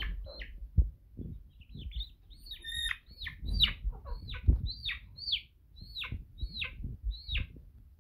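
A young chicken, a cockerel chick, calling again and again in short, loud peeps that each slide downward in pitch, about two a second, the distress calls of a chick being handled. Low thumps and wing flaps come from the bird struggling in the hands.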